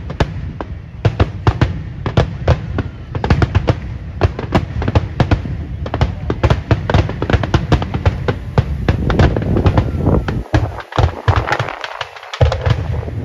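Aerial firework shells bursting in a rapid barrage: a long run of sharp booming reports, coming faster from about six seconds in and turning into a dense crackle toward the end.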